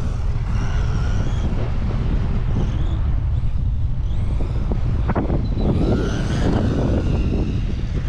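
Small brushless electric RC car driving on asphalt, its motor whine gliding up and down in pitch as it speeds up and eases off, over a steady low rumble.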